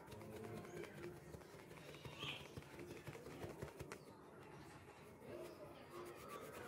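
Faint cooing of a dove, short low notes in small groups near the start and again near the end, over a quiet background.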